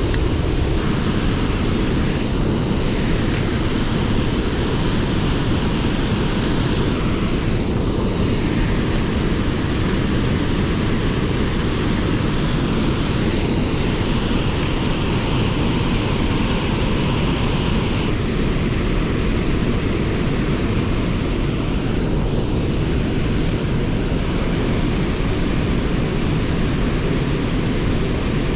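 A flood-swollen creek waterfall raging: a loud, steady, deep rush of heavily falling water, filling the microphone.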